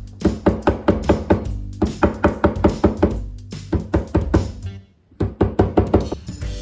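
Background music with quick, evenly spaced percussive notes, dropping out briefly about five seconds in.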